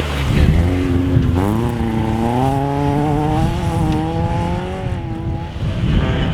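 Rally car engine at high revs on the stage: its note climbs in pitch about a second and a half in, holds high with small wavers, then fades near the end.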